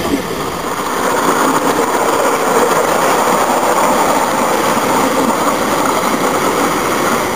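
A miniature live-steam locomotive and its driver's riding car running past on the track, a steady rolling noise that is a little louder through the middle as it goes by.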